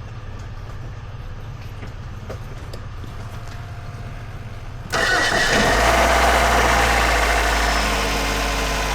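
2000 Nissan Altima's 2.4-litre four-cylinder engine: a low steady hum at first, then about five seconds in a sudden, much louder engine sound as it starts and settles into a steady idle. This is the engine being run to burp the cooling system after a thermostat replacement.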